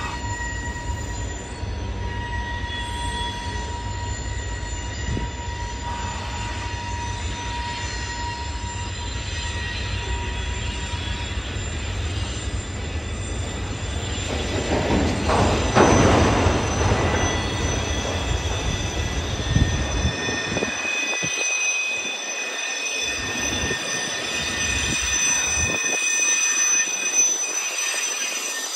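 Freight train of autorack cars rolling past with a low rumble, its steel wheels squealing in several steady high tones that shift in pitch as different cars go by. The sound swells loudest about halfway through.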